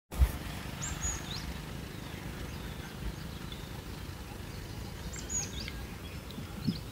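Forest ambience: a steady low rumble with a bird calling twice, each time a high whistled note that drops at the end, about a second in and again about five seconds in. A brief thump just as the sound begins.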